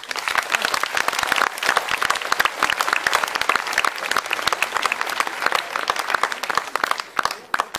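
Audience applauding, a dense clatter of many hands that thins to a few scattered claps near the end.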